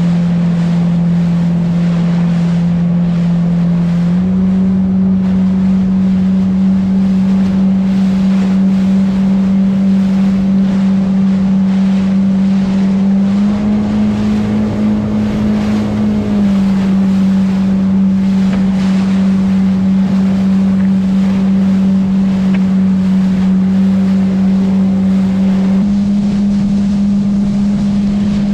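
Jet ski engine running at speed on open water, its steady note stepping up or down slightly a few times as the throttle shifts. The hull's rushing wake and spray and wind on the microphone run under it.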